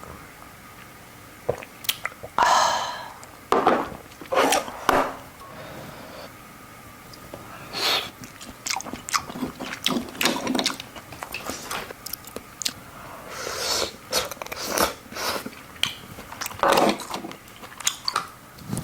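A person eating oysters close to the microphone: irregular short mouth noises of biting, chewing and slurping, with quiet gaps between them.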